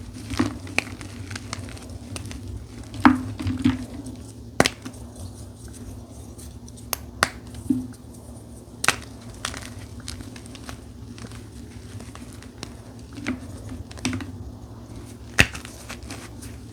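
Dyed gym chalk being crushed by hand, with irregular sharp crunches and snaps, a dozen or so spread out, over a steady low hum.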